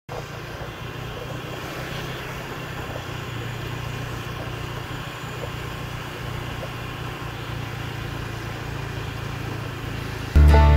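Steady street ambience with the low hum of motor traffic. Music starts suddenly and much louder near the end.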